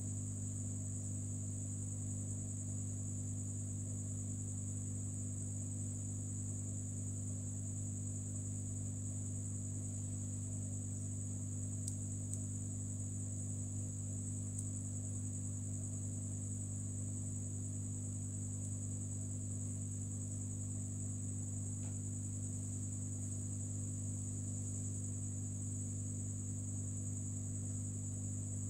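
Hot air rework station blowing steadily on a phone's IC: a continuous low electrical hum with a constant high whine above it, unchanging throughout.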